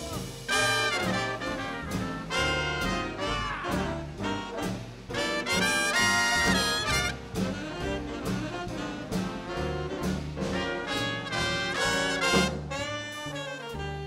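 Swing big band playing live: trumpets, trombones and saxophones over a rhythm section with a moving bass line.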